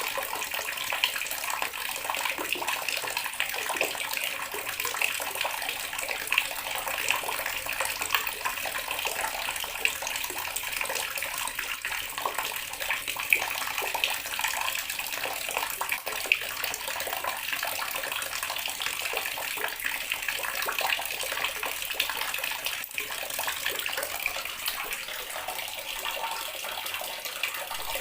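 Water running steadily from a tap, a continuous splashing stream with many small splashes scattered through it.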